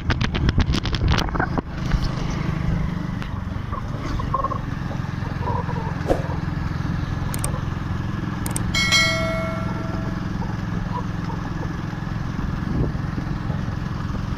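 Motorcycle engine running steadily under way, with wind noise on the microphone and some knocking in the first second or so. A brief high tone sounds about nine seconds in.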